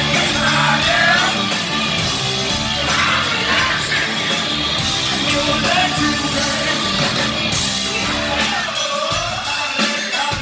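Hard rock band playing live: a male singer sings with sliding, held notes over electric guitar, bass and drums. The low end drops back for a moment near the end.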